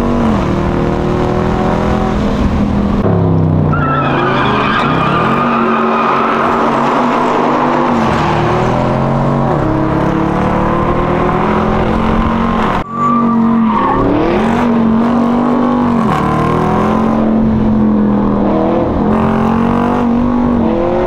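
Car engine revving hard, its pitch holding, dropping and climbing again over and over as it is driven, with a high squeal about four seconds in.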